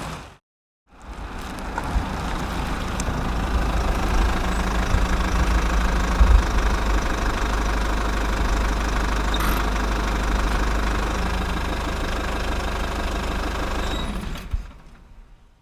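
An engine running steadily at idle, fading in just after the start and fading out near the end.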